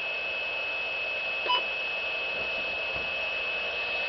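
Dead air on a NOAA Weather Radio broadcast: a steady hiss with a thin, constant high-pitched whine under it. One short beep comes about one and a half seconds in.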